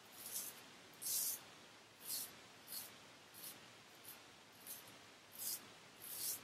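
Frederick Reynolds 7/8 heavy wedge straight razor scraping through lathered stubble on the neck in short strokes, about nine of them, a little over one a second.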